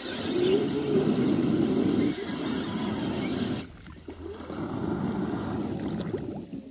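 Aiper Scuba S1 Pro robotic pool cleaner scrubbing along the pool's waterline, its motor running and its tracks and outflow churning and splashing the water at the surface. The churning dips briefly a little past halfway, then picks up again.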